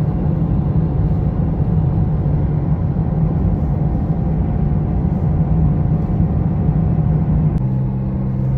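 Steady low road and engine drone heard inside a moving car's cabin. Near the end it changes abruptly with a click to a slightly lower, steadier hum.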